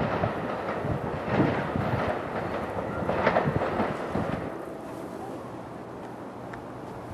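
Rail noise from a passing commuter train mixed with wind buffeting the microphone, coming in uneven swells, then settling to a quieter steady rumble with a low hum about four and a half seconds in.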